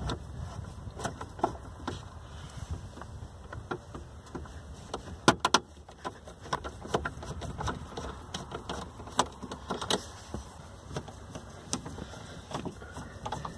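Scattered clicks and ticks of a screwdriver driving screws into a plastic lower dash panel, with a quick cluster of sharper clicks about five seconds in.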